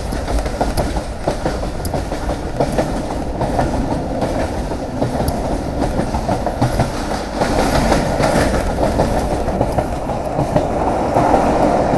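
Pakistan Railway passenger train running along the line, heard from on board: a steady rumble of wheels on rail with clicking over the joints, growing louder about two-thirds of the way through.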